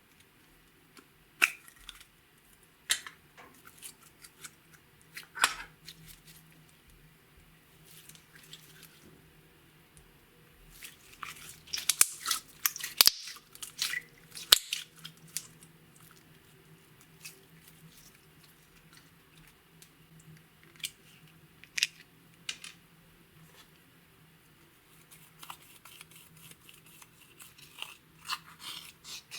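Slime being squeezed and worked by hand, giving sharp crackling clicks and pops. These come in ones and twos at first, then thick and fast about eleven to fifteen seconds in, and again near the end.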